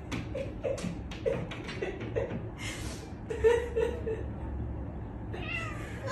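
A person chuckling softly in short bursts, with a few sharp clicks.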